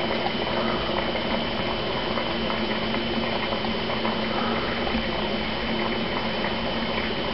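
Aquarium filter bubbling and trickling steadily, with a steady low hum underneath.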